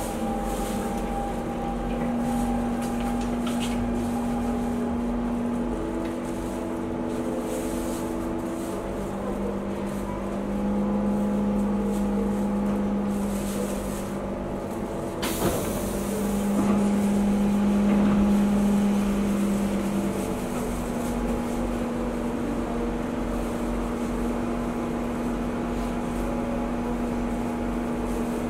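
Inside a Singapore MRT train car as it slows into a station: steady humming and whining tones from the train's traction equipment that shift in pitch several times. There is a brief sharp hiss about fifteen seconds in, and the train stands at the platform near the end.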